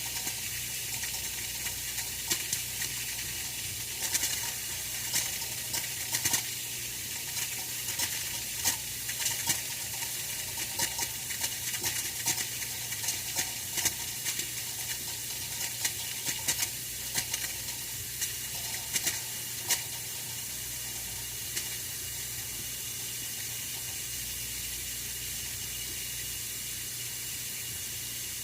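Oil-filled radiator heater giving off a steady hiss with irregular crackling ticks, which thin out after about twenty seconds.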